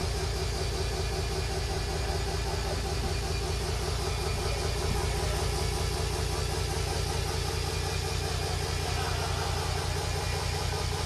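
Live electronic noise music: a dense, steady wall of distorted sound with a fast pulsing low end and a held drone.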